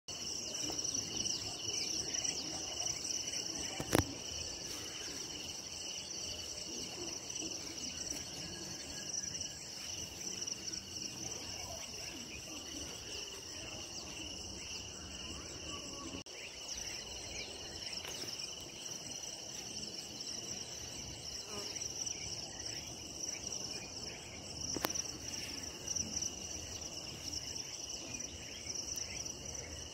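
Steady chirping of insects, crickets, over a low background rumble, with a sharp click about four seconds in and another some twenty seconds later.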